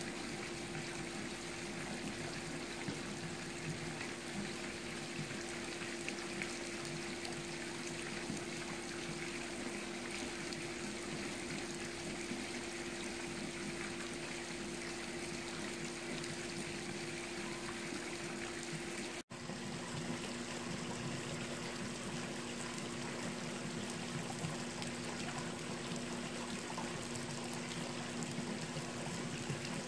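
Pool water feature splashing and trickling into the pool, with a steady low hum underneath. The sound cuts out for an instant about two-thirds of the way through, and afterwards the hum is lower in pitch.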